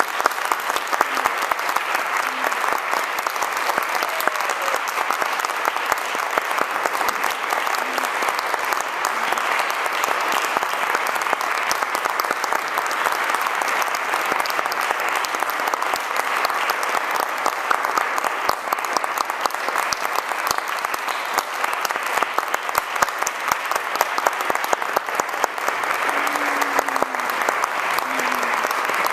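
Audience applauding: dense, steady clapping with a few faint voices among it.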